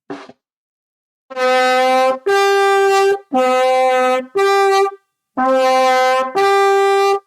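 Bugle played as a demonstration: six held notes of about a second each that alternate between a lower and a higher note a fifth apart. With no valves, the player jumps between the horn's natural notes by tightening the lips and pushing more air.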